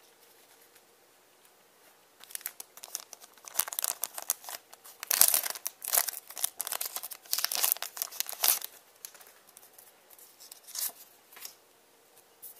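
Foil trading-card booster pack being crinkled and torn open by hand: a run of crackling and tearing from about two seconds in, loudest in the middle, with a few lighter rustles near the end.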